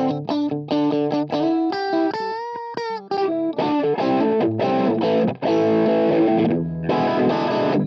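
Fender electric guitar playing a bluesy lead through a valve preamp and cab simulation, with an Ibanez TS9 Tube Screamer overdrive engaged. It opens with separate picked notes and a string bend, then from about halfway the playing turns thicker and more distorted: a crunchy overdriven blues tone.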